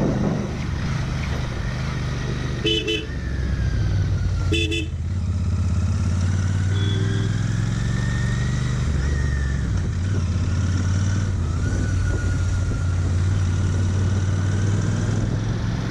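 Royal Enfield Interceptor 650's parallel-twin engine running steadily under way, its note shifting a couple of times. A horn gives three short toots in the first seven seconds.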